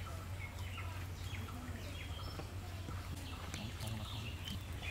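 Quiet outdoor background: a steady low hum with a few faint short bird chirps, and soft scattered clicks of people chewing food.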